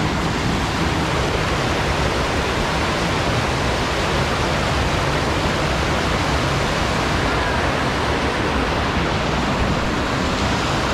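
Rushing mountain creek: white water pouring over rocks below a log crossing, a loud, steady rush.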